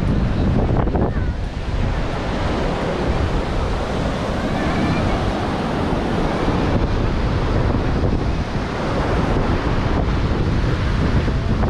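Ocean surf breaking and washing up on a sandy beach, steady throughout, with wind rumbling on the microphone.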